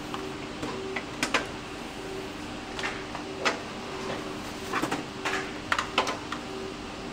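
Steady hum of an office supply-ventilation system, with a series of irregular sharp clicks over it.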